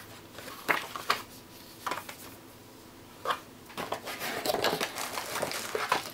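Paper rustling and short handling knocks as a leaflet is leafed through and set down, then denser crinkling toward the end as a graphics card in its metallic anti-static bag is lifted out of the cardboard box.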